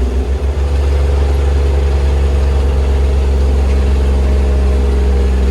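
Kubota RTV900 utility vehicle's three-cylinder diesel engine running steadily, heard from inside its enclosed cab as a loud, constant low hum.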